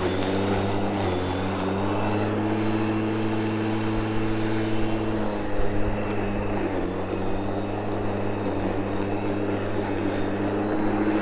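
TACKLIFE 10-amp corded electric lawn mower running under load, its motor and blade giving a steady hum as it cuts and mulches grass with the collection bag off. The pitch dips briefly a little past the middle.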